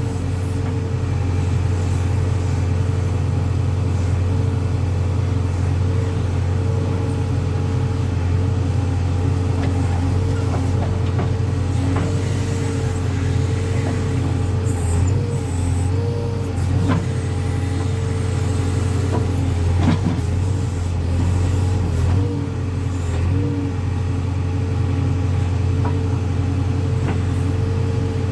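JCB 3DX backhoe loader's diesel engine running steadily, a continuous low drone with a steady higher hum over it, and a few faint clicks here and there.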